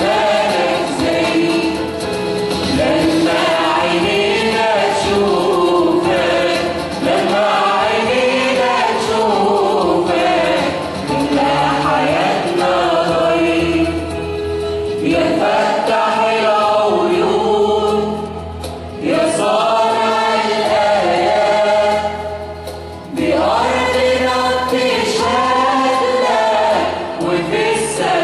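Church choir singing an Arabic Christian hymn, with short breaks between phrases.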